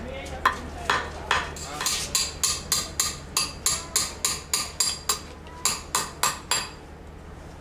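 Repeated hammer blows on silver being forged into a ring, about three a second with a bright metallic ring after each strike. The blows stop about a second before the end.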